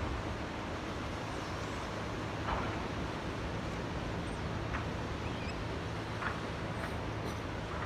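Small waves lapping in a tidal channel: a steady wash of water with a short splash every second or two, over a low steady hum.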